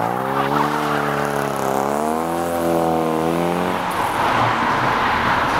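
Car engine revving as the car pulls away, its note rising and falling. About four seconds in it gives way to a steady hiss.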